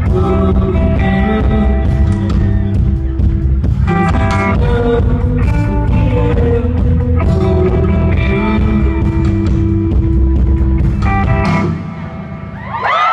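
Live folk-rock band playing loud through the venue PA, heard from the audience: an instrumental stretch of drums, bass and guitar. The band drops back sharply near the end.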